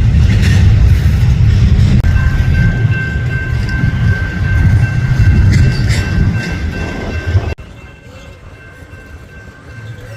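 Freight train rolling past with a loud, steady low rumble, joined about two seconds in by steady high-pitched ringing tones. About three-quarters of the way through the sound drops abruptly to a much quieter rumble.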